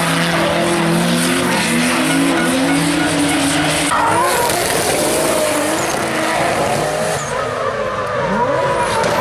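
Drift cars sliding sideways, engines held at high revs with the pitch rising and falling, over the hiss and squeal of spinning tyres. The sound shifts abruptly about four seconds in and again near seven seconds.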